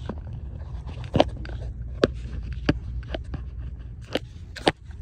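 Handling of a phone camera on a garage floor: a scattered run of sharp clicks, knocks and light scrapes, about half a dozen distinct ones, over a steady low rumble.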